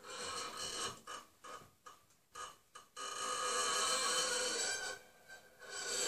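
Violin bow drawn slowly across the high strings of a harp, giving a creaky door-hinge squeak. A brief squeak, then a run of short stuttering squeaks, then one long steady squeak lasting about two seconds.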